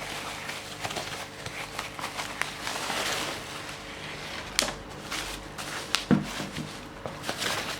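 Parcel packaging being handled and rummaged through, rustling and crinkling, with a few sharp clicks and knocks, one about halfway through and another about six seconds in.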